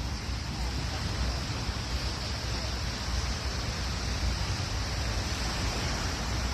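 Steady rushing noise of sea waves and wind, with wind buffeting the microphone as a low, fluctuating rumble.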